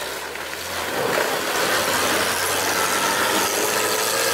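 Willys MB jeep's engine running hard under load as it drives out of a shallow icy ford, with water churning around the wheels. It grows louder over the first second, then holds steady.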